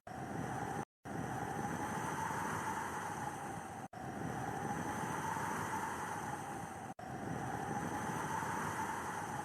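Steady snowstorm wind noise, a dense rushing hiss with a faint wavering tone in it, that drops out to silence for an instant three times.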